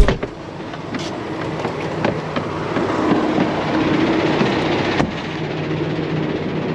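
Semi-truck diesel engine idling steadily, opening with a sharp bang, with a few knocks and clicks as the driver climbs down out of the cab.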